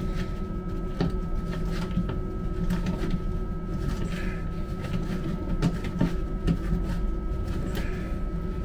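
Light clicks and knocks, about eight scattered through, as the parts of a railway carriage's vacuum toilet are handled during refitting of its vacuum-breaker diaphragm. Under them runs a steady low hum with a thin constant whine.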